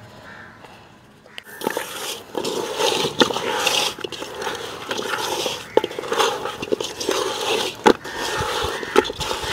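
Hands rubbing masala powder into small whole fish in a metal pot: wet scraping and squishing against the pot, starting about a second and a half in, with a few sharp clicks.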